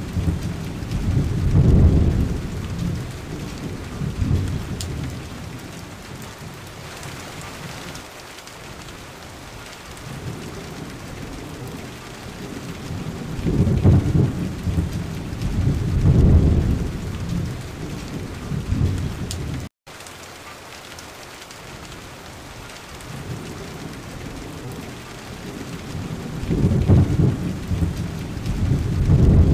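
Thunderstorm: steady rain falling, with long low rolls of thunder three times: at the start, about halfway, and near the end. The sound drops out for an instant about two-thirds of the way through.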